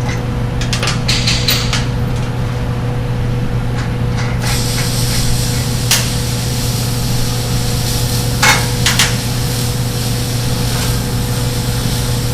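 Scattered metallic clicks and knocks as bolts and a weld-on brake assembly are taken off freshly tack-welded mounting tabs on a steel dolly, over a steady low hum. There is a cluster of small clicks early, then single knocks about six and eight and a half seconds in.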